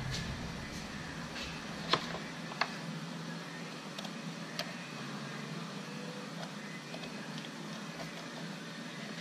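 Sharp clicks and taps of a test light and its clip being handled at a truck's battery, three of them louder, about two, two and a half and four and a half seconds in, over a steady low hum. A low rumble cuts out just after the start.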